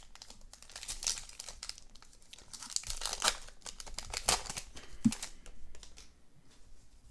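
Crinkling of a trading-card pack wrapper as it is torn open and handled, in irregular crackling bursts.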